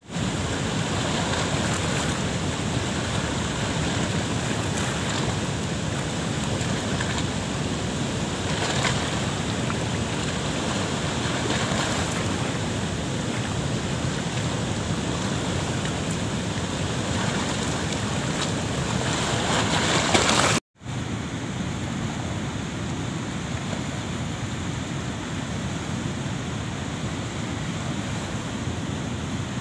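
Steady rush of water pouring through a dam's sluice gates and churning over a rocky riverbed. About two-thirds of the way through, the sound cuts out for a moment and comes back a little softer.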